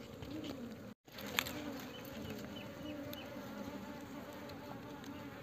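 Honeybees from a wild hive in a palm-trunk hollow buzzing close by: a steady hum that wavers a little in pitch. The sound drops out briefly about a second in.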